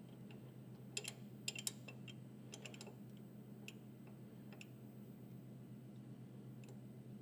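Faint, scattered small metallic clicks of a T-handle hex key turning set screws in a lathe tailstock's clamp plate, bunched in the first three seconds and sparser after, over a low steady hum.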